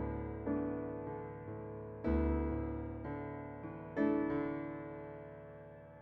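Slow solo piano background music: chords struck about every two seconds, each left to ring and fade, with lighter notes in between.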